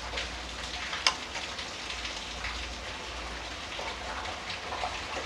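Hands rubbing ghee into crumbly wheat flour in a stainless steel bowl: a steady, gritty rustle of flour and crumbs, with one sharper tick about a second in and a steady low hum underneath.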